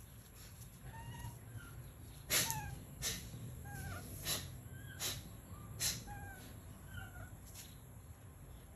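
Short, squeaky animal calls that fall in pitch, repeated about once a second. Five sharp, loud cracks come between about two and six seconds in.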